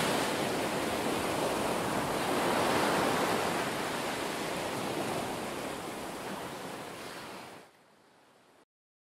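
Ocean surf: waves breaking and washing in a steady rush, fading near the end and then cutting off abruptly.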